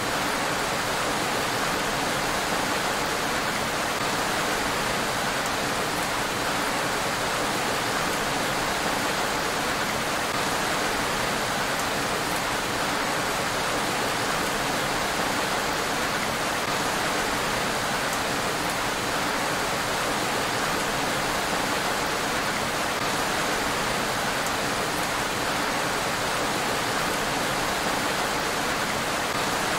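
Steady rain falling on a road, an even, unbroken hiss.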